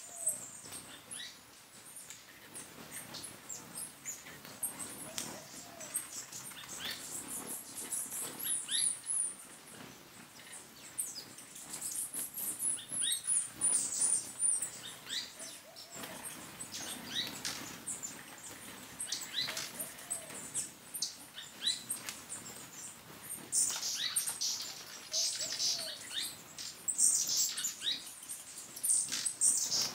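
Hummingbirds at a nectar feeder: thin, very high chips and squeaky twitters in quick runs, thickest near the middle and toward the end, with soft wing hum as birds hover and come and go.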